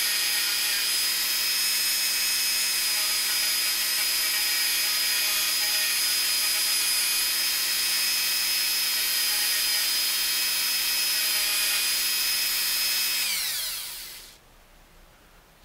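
Dremel rotary tool with a small wire-brush wheel running at a steady high speed, brushing light tarnish off the threads of a small screw. About 13 seconds in it is switched off and its whine falls away as it spins down.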